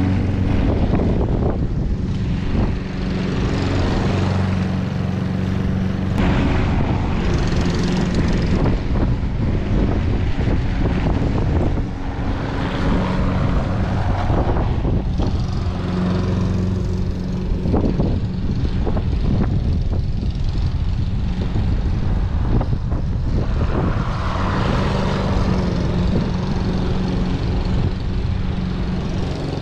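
Hayter Pro 41 petrol lawn mower engine running at a steady speed while cutting grass, a constant hum with a whirring, rushing noise over it.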